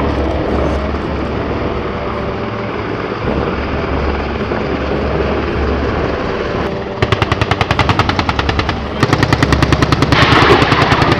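Military helicopters flying low, a steady rotor and engine noise. About seven seconds in, rapid automatic gunfire starts, several shots a second, pauses briefly near nine seconds, then starts again.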